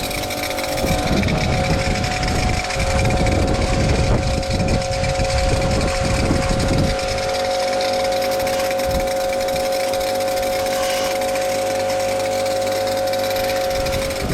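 Kärcher K7 electric pressure washer running on a low pressure setting, its motor humming steadily while the water jet sprays over a mountain bike. The spray noise is rougher and uneven for the first several seconds, then steadies.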